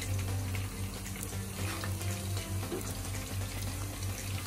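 Chicken dynamite rolls (lumpia-wrapped stuffed jalapeños) frying in hot oil in a pan: a steady sizzle with fine crackles. A steady low hum runs underneath.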